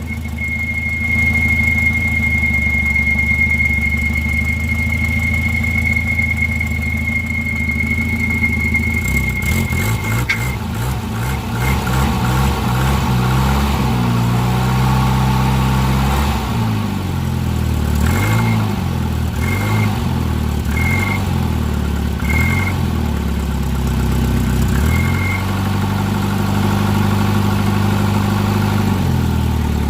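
Volvo car engine idling with a steady high-pitched squeal. About ten seconds in the squeal stops and the engine is revved up and down several times, with five short squeal chirps coming back partway through. The owner takes it for a bad pulley, very likely the harmonic balancer, though he isn't sure.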